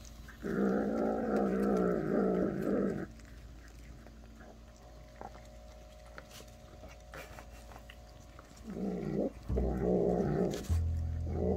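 A young cat growling low while it eats, guarding its treat from the bigger cats beside it. One long growl of nearly three seconds, then after a pause three shorter growls in quick succession near the end.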